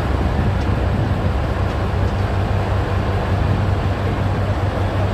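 Large mining haul truck's diesel engine idling with a steady, deep hum.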